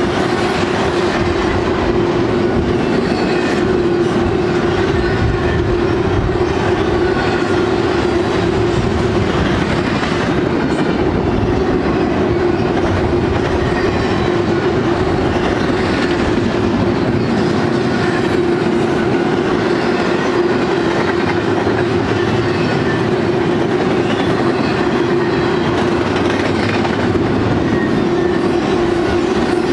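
Loaded double-stack intermodal well cars of a freight train rolling past at close range: steady wheel-on-rail noise with clacking wheels and a steady drone.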